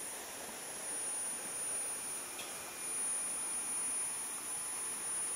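Rainforest river ambience: water rushing steadily over shallow rapids, with a steady high-pitched insect drone above it.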